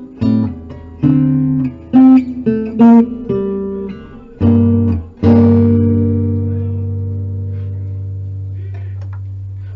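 Guild Artist Award archtop acoustic guitar played: a quick run of plucked notes and chords, then a final low chord about five seconds in that rings out and slowly fades away.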